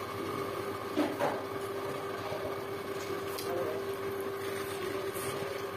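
Eating sounds, with two short, sharper chewing or biting sounds about a second in, over a steady machine hum.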